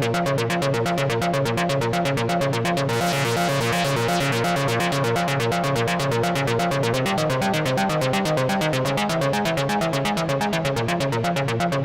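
Korg Monologue analog monophonic synthesizer playing a fast sequenced bass line: a rapid, even run of short notes stepping up and down in pitch. About three seconds in, the tone turns suddenly brighter and buzzier, then mellows again over the next few seconds.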